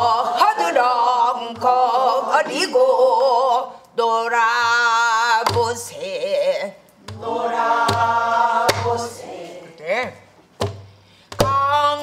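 A woman singing Korean pansori-style danga in a full voice with a strongly wavering pitch, beating time on a buk barrel drum with a stick: single low drum strokes every second or two between the sung phrases.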